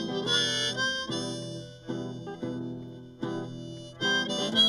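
Instrumental passage of a folk lament: harmonica playing a melody over acoustic guitar chords that are struck anew every second or so.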